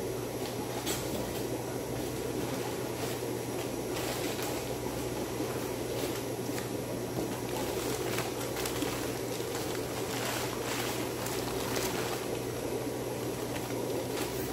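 Newspaper packing and a cardboard shipping box being handled and unwrapped, with irregular crinkles and rustles, over a steady low background noise.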